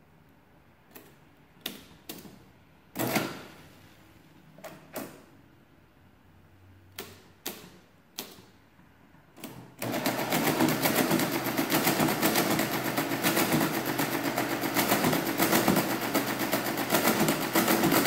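Friden Model S10 electromechanical calculator: a series of separate clicks as number keys and controls are pressed. About ten seconds in, its motor-driven mechanism starts a division and runs with a fast, even mechanical chatter while the carriage shifts, stopping suddenly at the end as the division completes.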